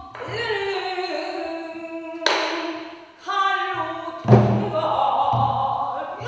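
A pansori singer holds and bends long, wavering sung notes, accompanied by a barrel drum (buk) struck a few times with deep thumps and one sharper hit.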